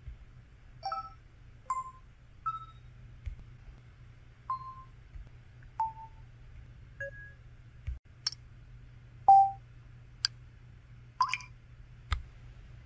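LG KU9600 Cyon Crystal mobile phone's system sound effects played one after another: about a dozen short electronic beeps and clicks at different pitches, each dying away quickly, roughly a second apart.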